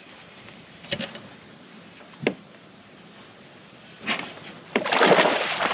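A hooked largemouth bass being fought at the boat: a few sharp knocks, then a loud rush of splashing water near the end as the fish thrashes at the surface.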